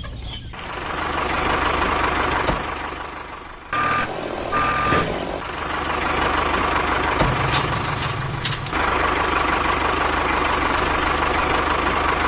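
Vehicle running steadily, with two short electronic beeps about four and five seconds in, like a reversing alarm.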